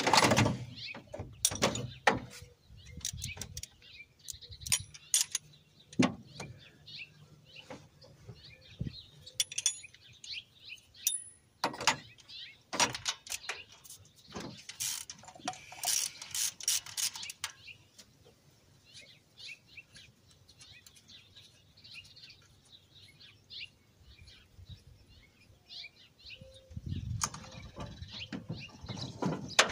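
Socket ratchet clicking in short runs, with scattered clinks and knocks of metal tools as bolts are worked loose.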